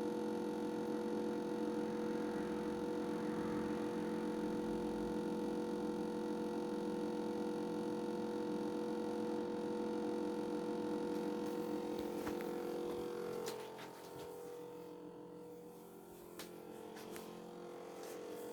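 Steady electrical hum made of several tones, from a device that keeps humming though it is switched off. It grows quieter about two thirds of the way through, with a few faint clicks.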